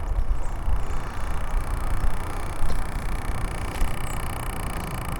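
Wind buffeting the microphone outdoors: a steady, uneven low rumble and hiss.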